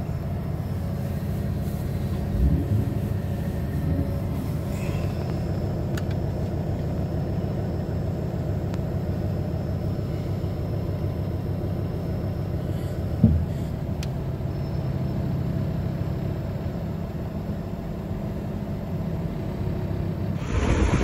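A car running, a steady low rumble, with a short knock about thirteen seconds in. Just before the end it gives way to wind buffeting the microphone.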